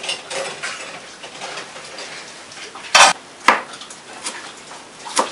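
Kitchen clatter of dishes and utensils being handled, light knocks and scrapes with two sharp clanks about three seconds in, half a second apart.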